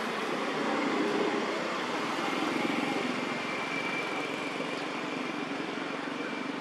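Steady outdoor background noise, with a faint thin high tone for a couple of seconds in the middle.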